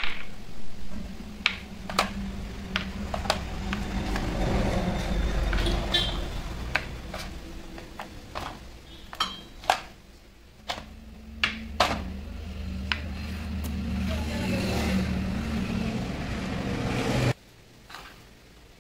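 Steel hex nuts clinking as they are picked up and set down one at a time on a wooden board and against each other: a scattered run of sharp metallic clicks. Under them a steady low hum runs and cuts off suddenly near the end.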